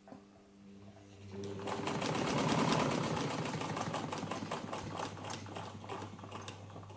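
Alfa 50 sewing machine, a 1960s Singer 15 clone with a belt-driven electric motor, sewing fabric. Its motor hum starts right away and speeds up about a second in, with rapid, even clicking of the needle mechanism. It is loudest about halfway through and eases slightly toward the end.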